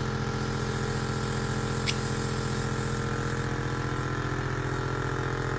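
Earwax microsuction unit's suction pump running with a steady hum as wax is drawn out of the ear canal, with a brief sharp click about two seconds in.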